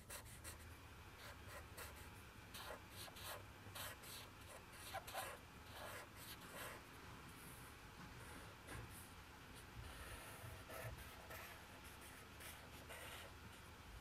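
Faint scratching of a felt-tip marker pen on paper: many short, irregular drawing strokes as lines and feathers are sketched in.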